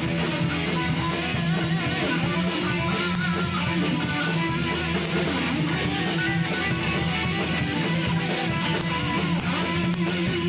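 A metal band's home demo recording: distorted electric guitars playing with bass and a steady drum beat.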